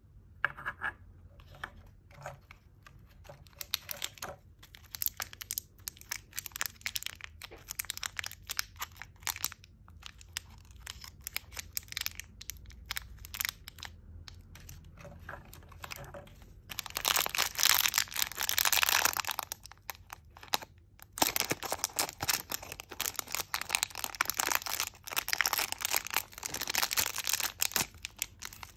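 A plastic Poké Ball capsule toy being handled and opened, with scattered sharp clicks and taps. Through the second half, thin plastic packets crinkle and tear loudly as they are unwrapped.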